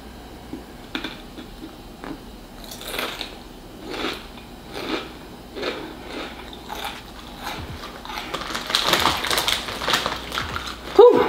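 Potato crisps crunched and chewed close to the mouth, in short crunches roughly once a second, turning to a denser crackling stretch over the last few seconds.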